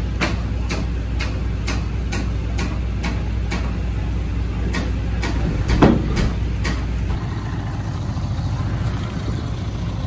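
Bulldozer's diesel engine running steadily, with an even clicking about two to three times a second that thins out after about four seconds, and one louder clunk near six seconds in. The engine's low note drops slightly about seven seconds in.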